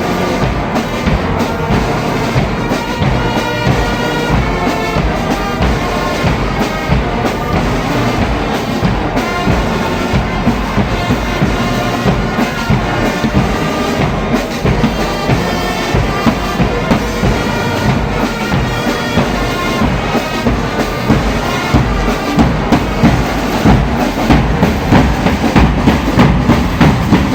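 A church brass band playing a tune, with horns carrying the melody over a bass drum beat. The drum strokes grow louder and more regular near the end.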